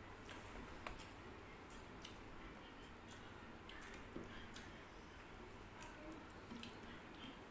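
Faint eating sounds: scattered soft clicks and smacks of chewing, with fingers mixing rice and curry.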